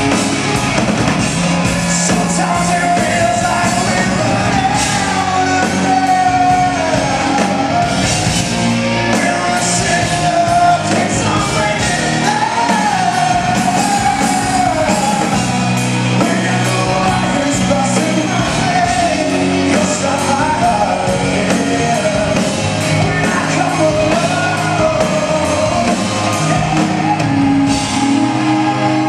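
Live rock band playing a song with a male lead singer, recorded from the audience in a large hall.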